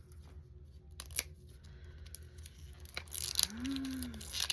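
Toy packaging being handled and pulled open by hand: a few sharp clicks about a second in, then denser rustling and tearing toward the end. A brief hummed "mm" near the end.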